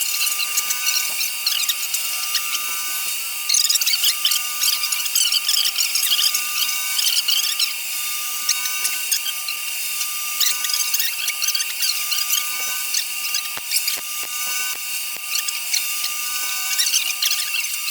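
Wire-feed welder arc crackling and sizzling unevenly as beads are laid on steel, over a faint steady whine.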